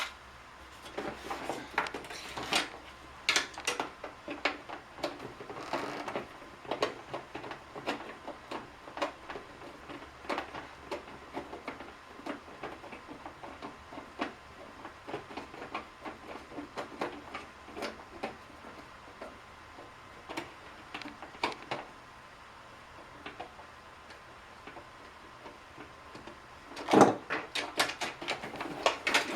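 Hand disassembly of a Keurig coffee maker: irregular small clicks, taps and scrapes of a screwdriver and hands working against its plastic housing and screws, with a louder knock near the end.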